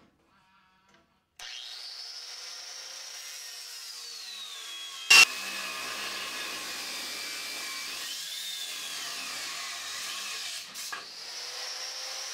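Angle grinder cutting into the steel wall of an air tank, starting about a second and a half in. Its high whine sinks in pitch as the disc bites into the metal, rises again, and sinks once more. There is one sharp bang about five seconds in.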